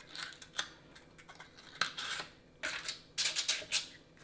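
Paper cupcake liners being pulled apart and pressed into a muffin mold: a few light clicks and taps, then a stretch of crinkling paper rustle about two and a half seconds in.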